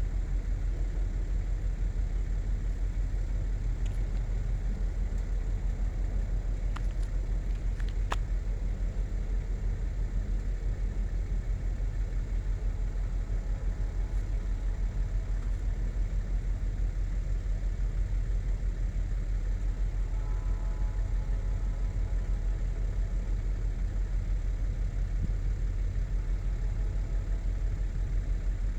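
A vehicle engine idling: a steady low rumble, with a few faint clicks about four and eight seconds in.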